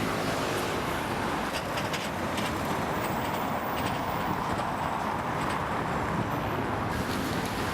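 Steady city traffic noise: a continuous rumble of passing vehicles, with a few faint clicks about two seconds in.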